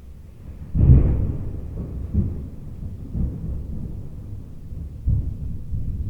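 Distant thunder rumbling: a low rumble breaks in about a second in and rolls on in several swells, over the recording's steady hiss.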